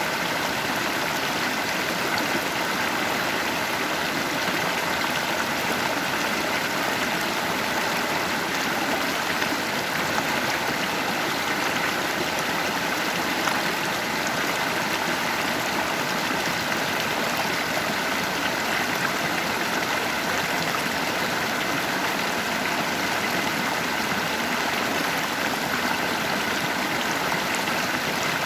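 Water of a natural stream flowing over rocks in a steady, unbroken rush with some gurgling.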